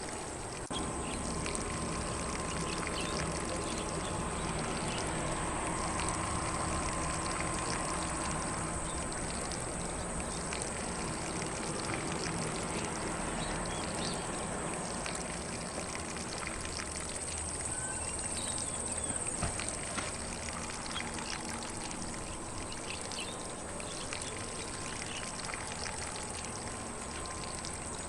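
Lawn sprinkler spraying water steadily onto grass, a continuous splashing hiss, with faint birds in the background.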